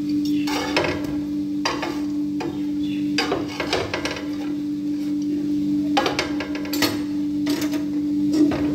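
Electric roti maker closed over a cooking roti, with irregular crackles and clicks over a steady low hum.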